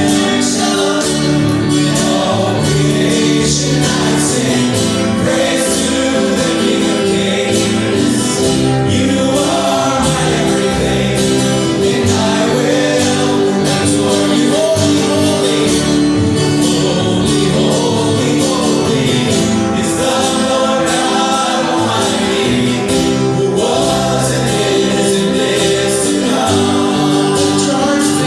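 Gospel worship music: several voices singing together over steady instrumental backing.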